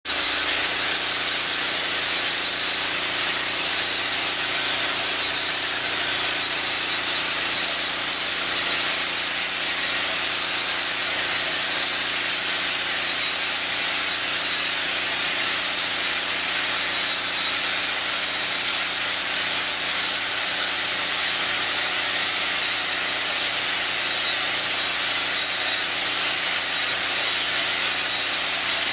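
Stand-up concrete grinder running steadily, its grinding head abrading the old acid stain off a concrete slab, with a steady high whine over the grinding noise.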